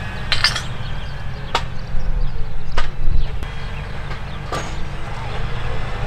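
Claas Axion 960 tractor's six-cylinder diesel running steadily under ploughing load, a low rumble, with four sharp knocks, a double one just after the start and then single ones spaced a second or more apart.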